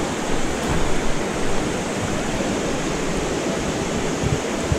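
Small river running fast over stones in a shallow riffle: a steady rushing of water.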